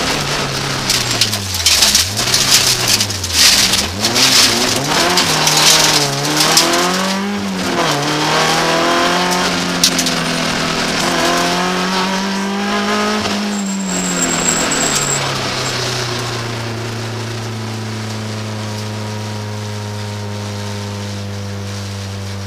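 Inside the cabin of a BMW 318 iS rally car: the four-cylinder engine revs up and down through gear changes, with gravel and stones rattling against the car over the first several seconds. About two-thirds of the way through the revs fall away and the engine settles into a steady idle.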